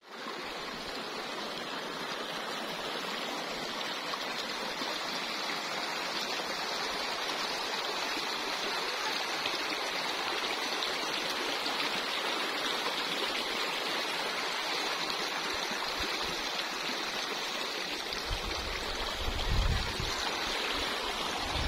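Steady rush of running water, an even hiss with no rhythm. Near the end there is a brief low rumble.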